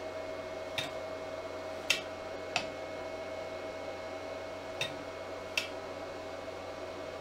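Five sharp, irregular clicks from a metal surface-mount gate magnet sensor being handled, its magnet moved against the reed-switch housing, with a faint steady hum underneath.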